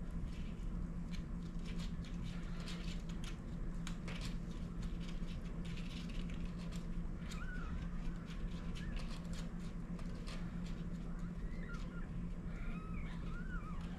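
Newborn kittens giving a few short, thin high squeaks, once partway through and several times near the end, over soft clicking and rustling in the bedding where the mother cat lies with them. A low steady hum runs underneath.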